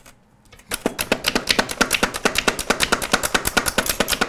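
Hand-operated food chopper cutting celery: a fast, even run of sharp clicks and clatters, starting under a second in.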